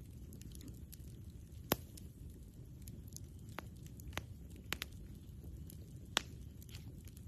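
Wood campfire crackling: about six sharp pops scattered over a low, steady rush of burning, the two loudest about a quarter of the way in and near the end.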